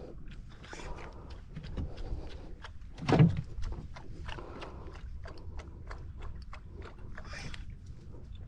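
Small, irregular clicks and knocks of hands working a spinning reel and rod while playing a fish, with one louder bump about three seconds in.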